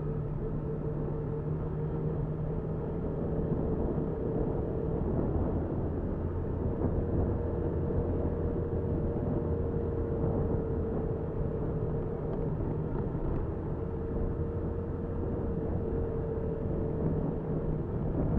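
Motorcycle engine running at a steady speed, heard through a bike-mounted dashcam with a constant rumble of wind and road noise; the engine note holds steady throughout.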